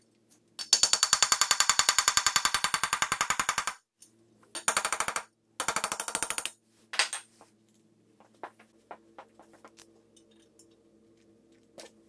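Hammer striking a steel punch held against the edge of a core plug in a Porsche GT3 Mezger (M96.79) aluminium engine block: a fast run of sharp metallic taps, about ten a second for three seconds, then two shorter runs and a single strike, then a few light clicks. The tapping knocks around the plug's edge to spin it in its bore so it can be pulled out.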